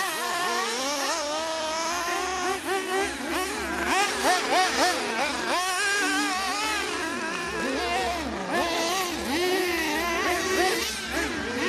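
Several 1/8-scale nitro buggies with .21 engines racing, their high-pitched engines overlapping as each revs up and eases off through the corners, so the pitch keeps rising and falling.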